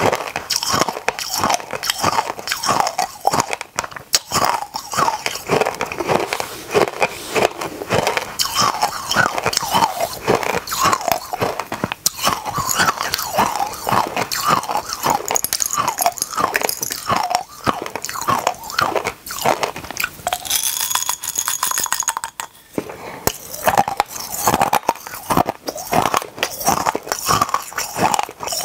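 Close-miked crunching and chewing of mouthfuls of tiny hard mini candies, a dense run of sharp crunches, with a brief high rattle about two-thirds of the way through.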